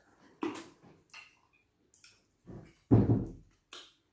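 A few short, scattered knocks and clicks, with a louder dull thump about three seconds in.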